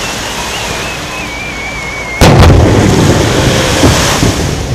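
A whistling aerial firework gives a wavering whistle that slowly falls in pitch. About two seconds in, a loud boom from a shell burst cuts it off and rolls on as a rumbling echo for about two seconds.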